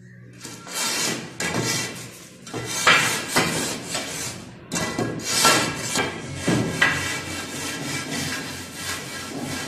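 A metal straightedge scraping back and forth over a wet cement floor bed as it is levelled: a series of gritty scraping strokes, each under a second long.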